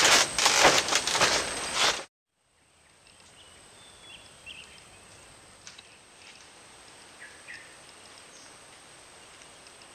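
Loud rustling with a few knocks for about two seconds, cut off abruptly. Then quiet outdoor ambience with a few short bird chirps and a steady high whine.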